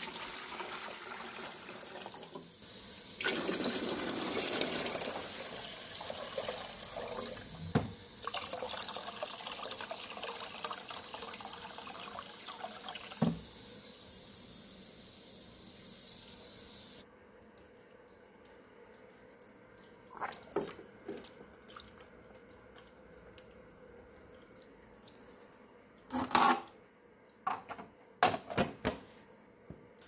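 Water poured from a container into a top-fill humidifier's tank, a steady rushing splash that grows heavier about three seconds in and stops a little past halfway as the tank fills. A few short knocks follow near the end.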